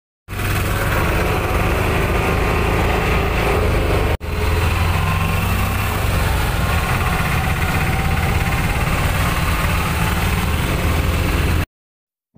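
Small auto-rickshaw (tuk-tuk) engine running steadily, heard from inside the cab, with a brief cut about four seconds in.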